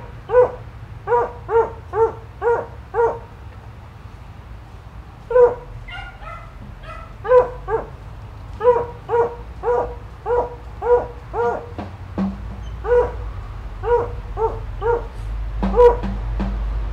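A dog barking over and over off-camera, short barks of much the same pitch at about two or three a second. It breaks off for about two seconds shortly after the start, then carries on.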